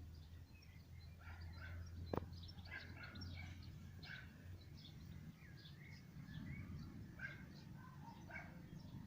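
Faint chorus of small birds chirping and twittering, many short calls overlapping, over a low steady background rumble, with one sharp click about two seconds in.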